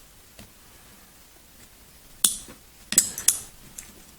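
Sharp metallic clicks and clinks of small steel pistol parts being handled and pressed into place: one about two seconds in, then a quick cluster of several about a second later.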